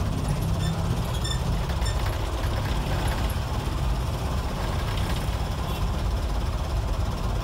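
1990s Mitsubishi diesel engine of an old medium bus running under way, heard from inside the cabin as a steady low drone mixed with road noise.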